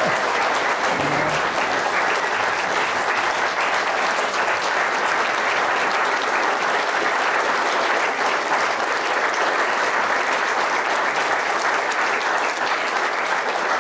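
Audience applauding steadily and at length in a standing ovation.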